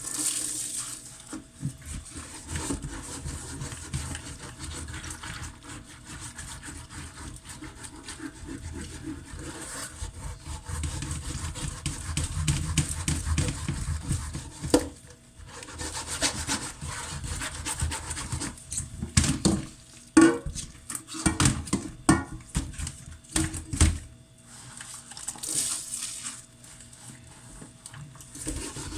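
Pots being scrubbed by hand in a kitchen sink: a scouring pad or sponge rubbing back and forth over metal, with a few sharper knocks partway through.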